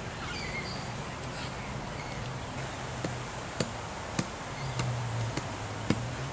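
Outdoor bush ambience: a steady hiss with a few faint bird chirps, then a series of sharp clicks, a little over one a second, through the second half.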